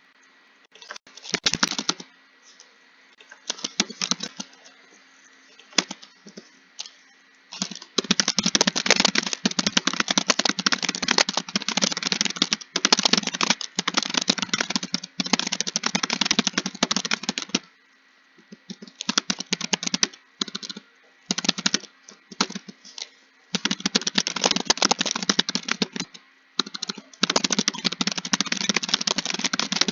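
Typing on a computer keyboard: rapid runs of key clicks in spurts, short bursts at first and then long fast stretches broken by brief pauses.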